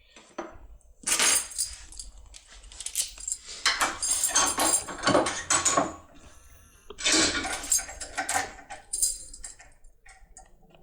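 Thin metal foil crinkling and rustling as it is handled and pressed onto the metal impression tool, with small metallic clicks, in three bursts of handling.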